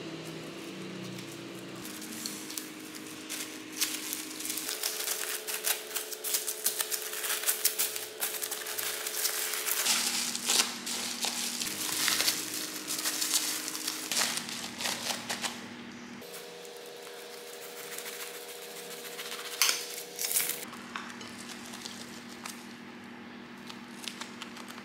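Glad Press'n Seal plastic wrap crinkling and crackling as it is pressed and sealed around a tortilla wrap, busiest through the first half and again briefly later. Soft background music with slow held chords underneath.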